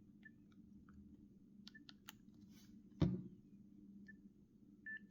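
Nokia 6670 mobile phone being handled: a few faint key clicks and several short, soft beeps, with one louder handling thump about three seconds in.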